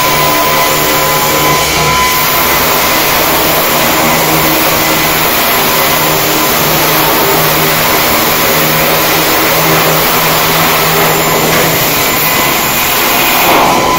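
Steady, loud industrial machinery noise with a faint low hum under it and no let-up.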